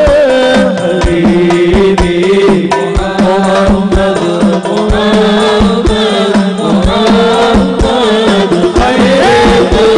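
A male vocalist singing an Arabic sholawat with wavering, ornamented runs into a microphone, over hadrah frame drums and a bass drum beating a brisk, uneven rhythm.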